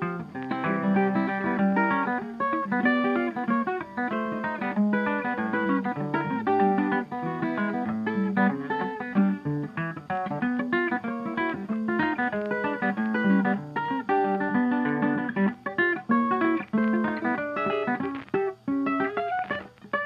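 Background music: a plucked guitar playing a quick, busy melody of short notes over chords.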